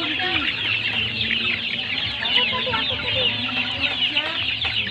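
A flock of chickens peeping and clucking all together, a dense mix of many short high peeps over lower clucks, as the birds crowd in to feed.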